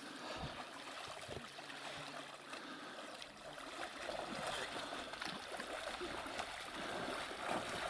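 Faint, steady water noise with small irregular splashes.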